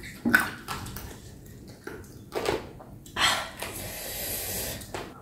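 Close-up eating sounds of chicken feet pickled with lemongrass and kumquat: wet chewing, smacking and sucking on the skin and cartilage. The loudest is a sharp smack about a third of a second in, with a longer slurping noise from about three to four and a half seconds.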